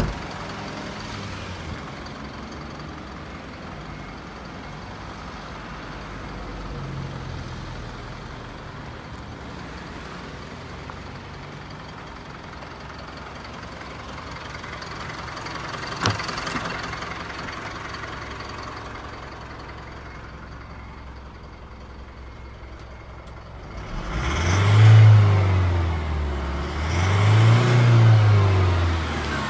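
Isuzu Elf light truck's engine idling steadily, then revved twice near the end, the pitch climbing and falling back with each rev. A sharp knock at the start and another about halfway through.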